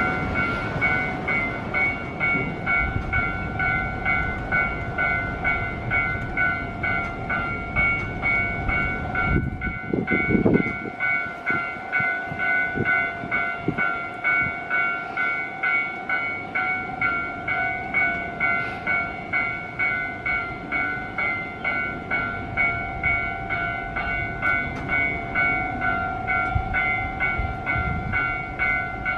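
Railway level-crossing warning bell ringing in an even rhythm of about one and a half strokes a second. Strong wind buffets the microphone over the first ten seconds, and there is a brief low blast about ten seconds in.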